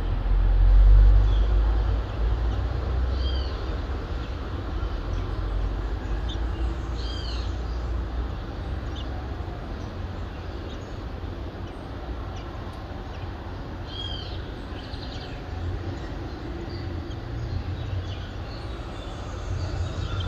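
Dawn ambience: a steady low rumble of distant city traffic, heaviest in the first couple of seconds. Over it a bird repeats a short looping whistled call every few seconds, with scattered brief chirps.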